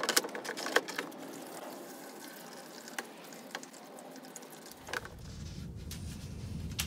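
Liquid sloshing and splashing in a plastic bucket as a foam air filter is squeezed and worked in mineral turpentine to wash the oil and dirt out of it, with small splashy clicks. A low steady hum comes in about five seconds in.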